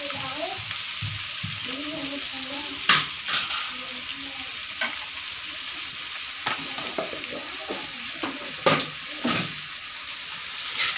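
Mutton frying in hot oil in an aluminium pressure cooker, a steady sizzle. Several sharp metal clinks and scrapes come from a ladle stirring in the pot.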